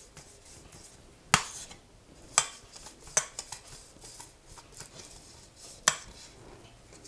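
Metal springform pan ring being turned in the hands while its inside rim is brushed with fat: four sharp clinks and knocks of the pan, the loudest about a second in, with soft rubbing between.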